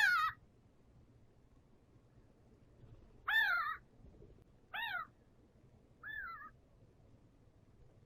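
An animal calling four times: short pitched calls that each fall in pitch, the last one fainter.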